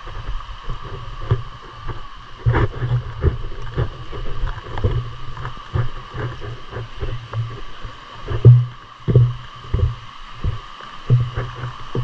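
Footsteps on a wooden plank boardwalk, a run of irregular knocks and low thumps, over the steady rush of a shallow river flowing alongside.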